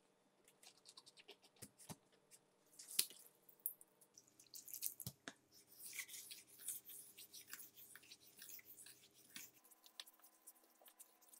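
A few light clicks and knocks as the whetstone is settled in its holder, the sharpest about three seconds in, then a Japanese kitchen knife's blade stroked back and forth on a wet whetstone with a soft, wet scraping, fading toward the end.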